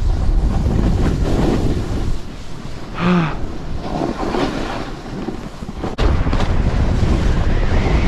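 Wind buffeting the microphone and a snowboard sliding and scraping over snow during a run, a steady rushing noise. About three seconds in there is a brief pitched sound. Near six seconds a sharp click comes, and the wind noise gets louder after it.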